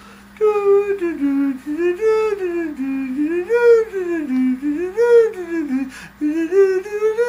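A person humming a slow, wordless tune whose pitch rises and falls in smooth arcs. The tune starts about half a second in and breaks off briefly near the end before going on.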